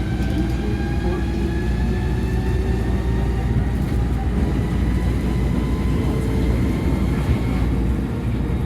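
Tama Monorail train running, heard from inside the car: a steady low rumble with a motor whine that climbs slowly in pitch as the train gathers speed.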